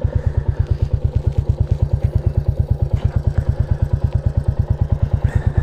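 Royal Enfield Classic 350's single-cylinder engine idling in neutral, an even beat of about nine pulses a second.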